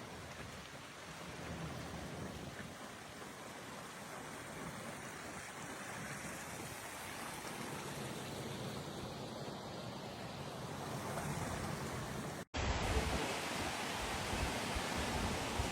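Steady rush of storm surf and wind noise. About twelve seconds in it cuts out for an instant and comes back louder, with more low rumble.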